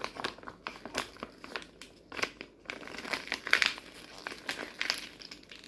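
Packaging being handled and crinkled, a rapid irregular crackling that gets busier about halfway through.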